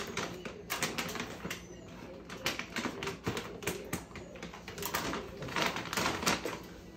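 Plastic dog-food bag being worked open by hand, with a run of irregular crinkling crackles as the packaging tears and flexes.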